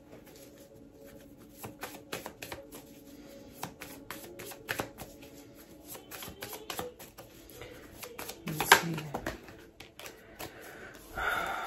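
Tarot cards being shuffled by hand: a rapid, uneven run of soft card clicks, with a louder burst about nine seconds in.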